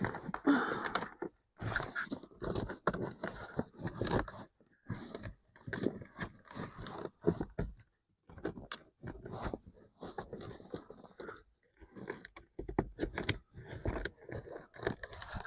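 A new car filter being stuffed back into its housing by hand: irregular scraping and crunching in short bursts with brief pauses.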